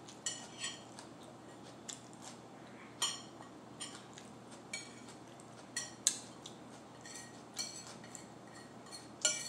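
Metal table knife scraping and clinking against a plate in short, irregular strokes, scraping up everything bagel seasoning.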